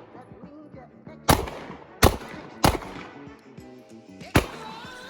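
Four handgun shots fired one at a time: the first about a second in, two close together in the middle, the last near the end. Quiet background music plays underneath.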